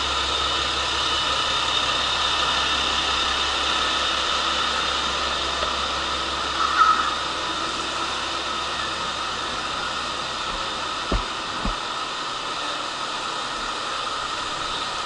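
KiHa 47 diesel railcar idling at the platform: a steady engine drone with a hiss. A brief louder sound comes about seven seconds in, and two short low thumps just after eleven seconds.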